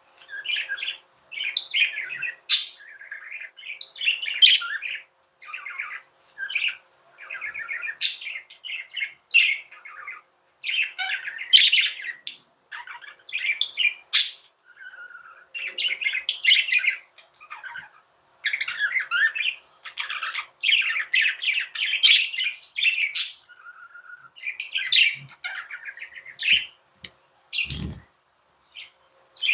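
Budgerigars warbling and chattering in a fast, continuous stream of chirps. There is a brief knock near the end.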